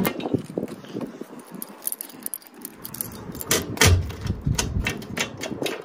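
Keys jangling and clicking against a metal mailbox, with a cluster of sharp clicks and a low thump about four seconds in.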